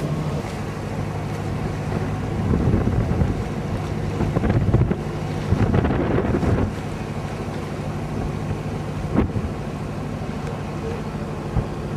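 A passenger ferry's engine running with a steady low hum, heard from on board, with wind gusting hard on the microphone for several seconds near the middle.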